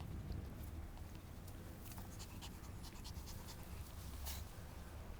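Havanese puppies eating tomatoes, heard as faint scattered ticks, crunches and rustles, with a slightly stronger one about four seconds in, over a steady low rumble.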